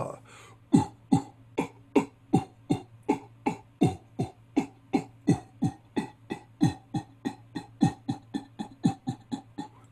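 A man imitating a train with his mouth and throat: open-throated "hoo hoo ha ha" chugs with a little cough-like catch in the throat, about three a second, in an even rhythm. The chugs start about a second in and each one falls in pitch.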